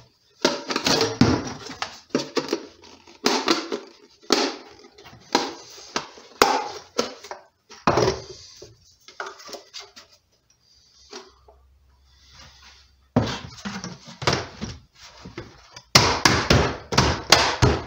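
Hard plastic knocking and clattering as a PVC elbow is worked into a plastic bucket lid and the lid and PVC pipe are handled and fitted onto the bucket. The knocks come in irregular bursts, quieter for a few seconds past the middle, then a dense run of knocks near the end.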